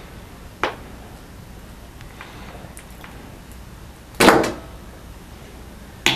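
Hand wire strippers working on insulated wire: a sharp click under a second in, a louder snap with a short tail about four seconds in, and another sharp click at the end.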